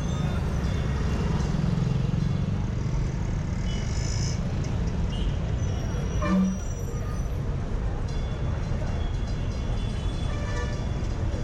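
Busy roadside traffic at a bus stand: a steady low rumble of bus and vehicle engines, with scattered faint horn toots. About six seconds in, a brief louder low horn toot.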